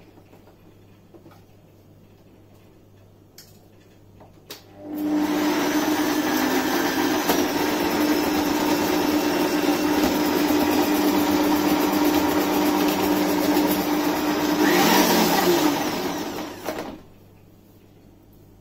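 Kenwood Prospero kitchen machine running its food processor attachment with the slicing disc, shredding cabbage fed down the tube. The motor starts about five seconds in after a couple of light knocks, runs steadily with a hum, grows louder just before the end, and stops about seventeen seconds in.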